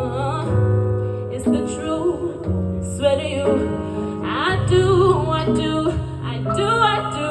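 Live song: a singer holds and bends a melody over sustained chords and deep bass notes that change every second or so.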